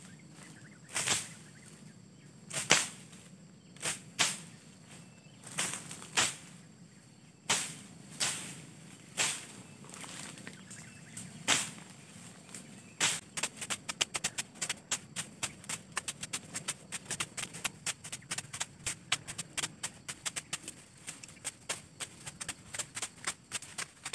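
A series of sharp, crisp snaps from plant stems being broken while fern shoots are picked and brush is cleared, at first about one a second. From about halfway through, the clicks come much faster, several a second.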